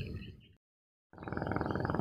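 The sound fades out to silence, then about a second in a spinning reel starts being cranked with a fast, even whirring rattle.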